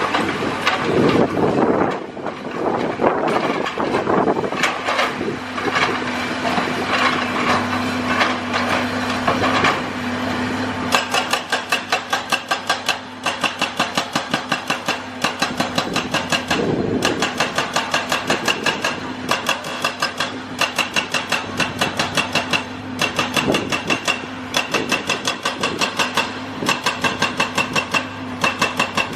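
Excavator's hydraulic breaker hammer chiselling concrete over the machine's running engine. About a third of the way in it settles into rapid, even blows in runs of a few seconds, broken by short pauses.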